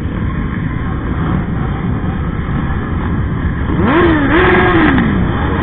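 Many motorcycle engines rumble steadily at low speed. About four seconds in, a nearby motorcycle revs hard: its engine rises, dips, climbs again, holds for under a second, then winds back down.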